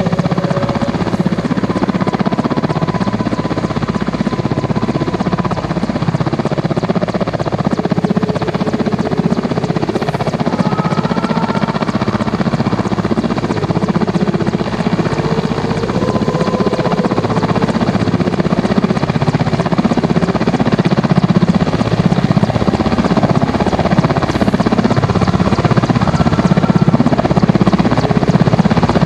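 Mi-17V5 military helicopter hovering: a steady, dense chop of the main rotor with engine noise, growing a little louder near the end.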